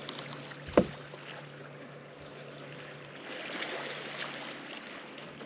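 Water lapping and trickling around a bass boat's hull over a faint low hum, with one sharp knock about a second in.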